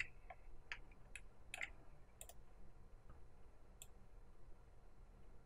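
Faint, irregular clicks of a computer mouse's buttons, about six over the first four seconds.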